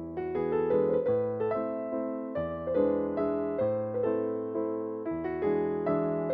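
Background piano music: a melody of struck notes, a few a second, each note fading after it sounds.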